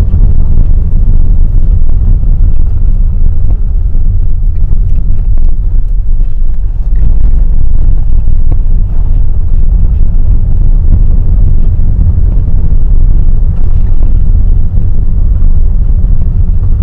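Steady low rumble of a car driving slowly, engine and tyre noise heard from inside the cabin.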